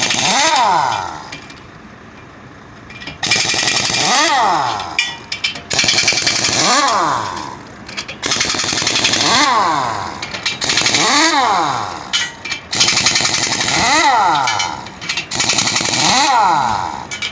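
Pneumatic impact wrench run in about seven short bursts on truck wheel nuts, each burst rising then falling in pitch, with a quieter pause a second or two in.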